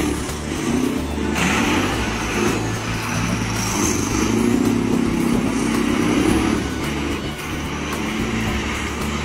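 Semi-truck tractor unit's diesel engine running under load and revving up and down as the unit slides in circles on snow.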